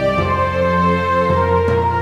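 Background music: sustained instrumental chords moving slowly from one to the next.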